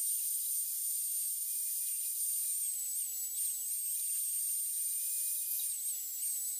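Handheld angle grinder with a sanding disc running steadily, a high whine over the hiss of the disc sanding the wooden grip scales of an aluminium slingshot. The whine dips briefly in pitch a few times as the piece is pressed against the disc.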